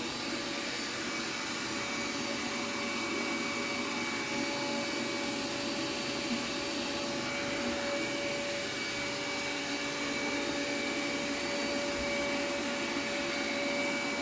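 Xiaomi X10 robot vacuum running: a steady motor whir with a constant high whine, holding even without change.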